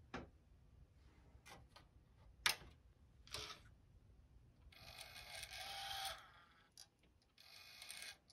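Sony MXD-D40 CD/MiniDisc deck's disc mechanism at work with the cover off: a few sharp mechanical clicks, the loudest about two and a half seconds in, then two spells of motor whirring. This is the drive loading a disc and reading its table of contents.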